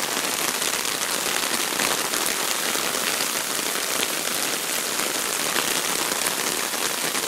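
Rain falling steadily: a dense, even hiss with many separate drop ticks.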